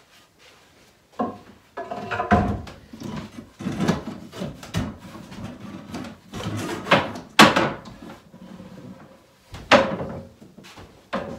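Irregular wooden knocks, clunks and clatter as a wooden IKEA drop-leaf table is collapsed, its swing legs folded in and leaves let down, with wooden stools being moved. The sharpest knocks come about two-thirds of the way in and again near the end.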